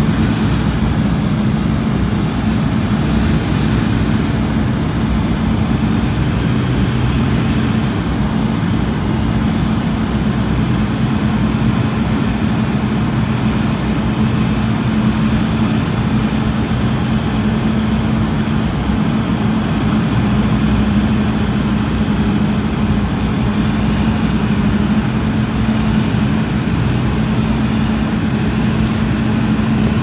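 Cabin noise of a Cessna 208B Grand Caravan EX low on approach: its single Pratt & Whitney PT6A-140 turboprop and propeller drone steadily. There is a strong low hum and a faint high whine over it.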